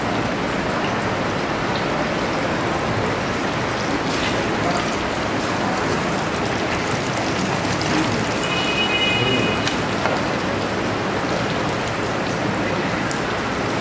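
Steady dense hiss, with a short high tone about eight and a half seconds in.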